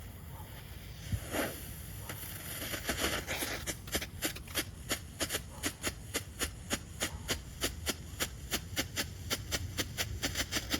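World Class Fireworks Bug Zapper novelty firework going off with a fast, even run of sharp pops, about four a second, that begins about two seconds in and grows louder.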